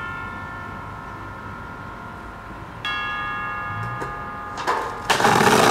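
Steel guardrail ringing with a bell-like tone after the skateboard strikes it, twice, each ring fading slowly. Near the end come a couple of knocks, then the loud, steady scraping rasp of the skateboard on the surface.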